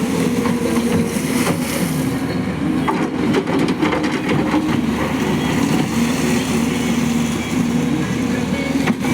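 JCB excavator's diesel engine running under load, its pitch rising and falling, with a few sharp knocks near the middle.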